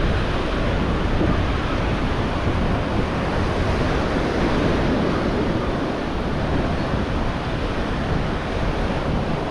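Ocean surf breaking on the beach, a steady wash of noise, with wind buffeting the microphone.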